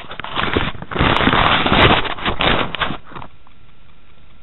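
Loud crackling rustle and knocks of a handheld camera's microphone being rubbed and bumped while it is moved about, stopping about three seconds in.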